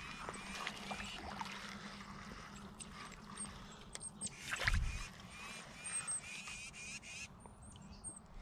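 Small birds calling over and over in short chirps, with a brief louder knock and rustle about halfway through.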